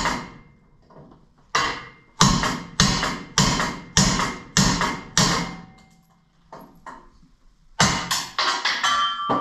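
Hammer striking a steel punch to drive a rust-seized universal-joint bearing cup out of a driveshaft yoke: sharp, ringing metal blows about two a second, a short pause with a few lighter taps, then another run of blows near the end.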